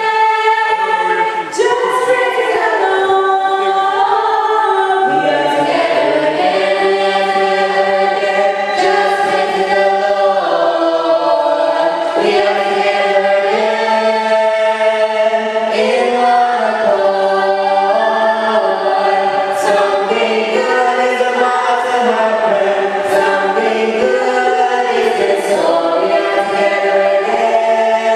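Church congregation singing a gospel hymn together in several parts, apparently unaccompanied.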